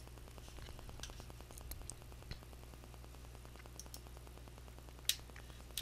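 Faint steady low electrical hum with a few soft computer mouse clicks, the sharpest about five seconds in.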